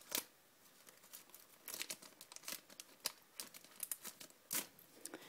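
Foil booster-pack wrapper crinkling and cards being handled after the pack has been cut open, in faint scattered crackles and clicks.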